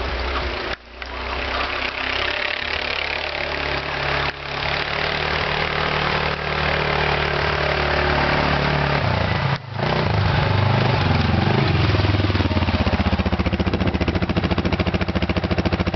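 Arctic Cat ATV engine running as the quad rides through snow toward the listener, growing louder about two-thirds of the way in. Its revs then fall and it settles to an even, pulsing idle close by.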